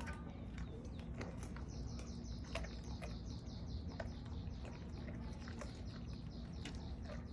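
A dog crunching on chicken, giving scattered sharp cracks of bone. A bird's fast trill of short falling high notes runs behind it from about two seconds in until near the end.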